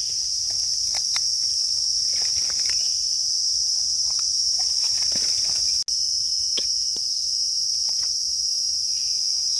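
Steady, high-pitched drone of forest insects, with faint scattered rustles and snaps of leaf litter beneath it. The sound drops out for an instant just before six seconds in.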